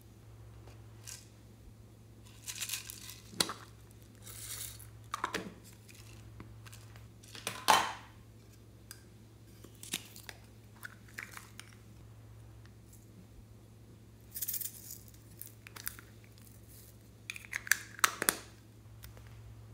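Small plastic toy containers clicking and rattling as their lids are twisted off, with sprinkles and confetti shaken out onto slime in a bowl: scattered short clicks and rustles with pauses between them.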